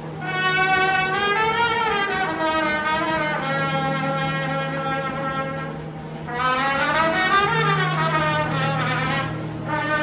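Brass band music with a trumpet solo over held low band notes. The trumpet plays two long phrases, each rising and falling back in pitch, the second beginning about six seconds in.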